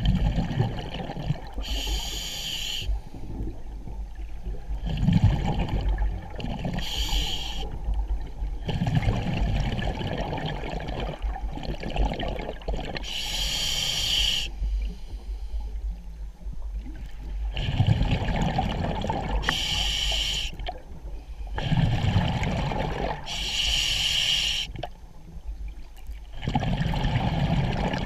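Scuba diver breathing through an open-circuit regulator, heard underwater: a short hiss from the regulator on each inhale, then a longer rumble of exhaled bubbles, repeating about every five seconds.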